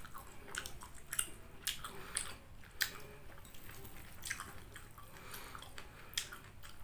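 Close-up wet chewing of a mouthful of chicken noodles (mie ayam): irregular sharp mouth clicks and smacks, several a second, while a spoon and fork stir and lift the noodles in the bowl.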